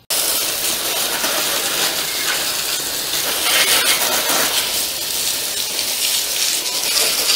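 Garden hose nozzle spraying water onto a motorcycle's rear wheel and exhaust, rinsing off degreaser: a steady hiss of spray that starts suddenly.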